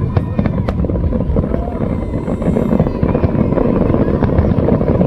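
Fireworks bursting in quick succession: a loud, continuous low rumble of explosions with many sharp crackles scattered through it.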